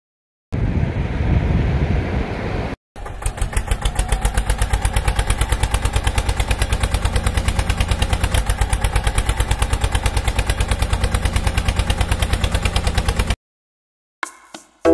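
Tractor engine sound effect: a diesel engine chugging steadily at about eight beats a second, cutting off abruptly near the end. A couple of seconds of rougher engine noise come before it, split off by a short break.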